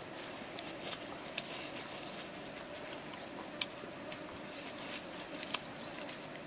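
A puppy chewing and gnawing at a grilled fish, with wet smacking and about four sharp crunches. Short rising chirps repeat faintly in the background.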